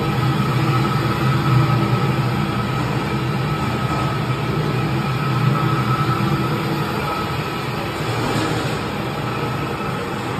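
AMFEC 510 paddle blender running empty, its electric drive turning the paddles in the stainless steel trough with a steady low hum and a faint high whine.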